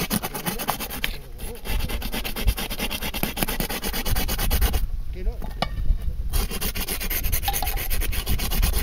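Fast, continuous scratchy rasping and rubbing, breaking off briefly about a second in and again for over a second past the middle.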